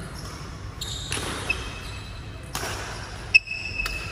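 Badminton rally in a large hall: rackets striking the shuttlecock with short sharp smacks, the loudest about three and a half seconds in, and shoes squeaking on the court floor. The hits echo around the hall.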